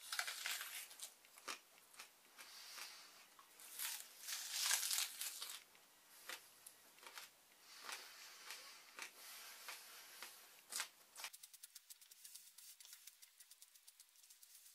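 A person biting into and chewing a whole raw onion, with crisp, wet crunching and crackling. About eleven seconds in the crunching stops abruptly, leaving only faint, fast ticking.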